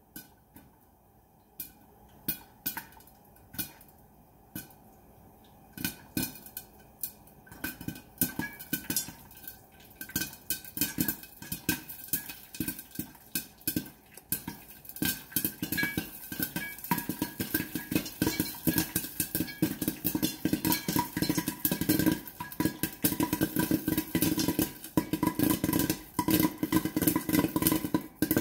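Popcorn kernels popping inside a covered metal saucepan: a few scattered pops at first, quickening over the stretch to rapid, dense popping with kernels rattling against the pan and lid as the batch reaches full pop.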